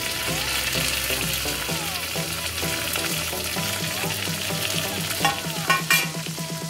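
Chopped fresh coriander and a broken dried red chilli sizzling in hot fat in a small pan as a tadka is fried, with a few sharp clicks near the end. Soft background music plays underneath.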